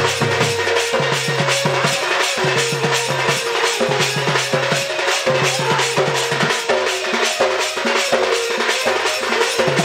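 Instrumental interlude of Sambalpuri dand folk-theatre music: fast, steady drumming with shaker- and cymbal-like strikes several times a second and a held melody line stepping over it.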